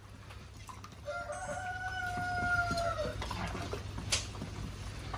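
A rooster crowing: one long, fairly level crow starting about a second in and lasting about two seconds, dropping at its end. A sharp click follows near the end, over a low steady hum.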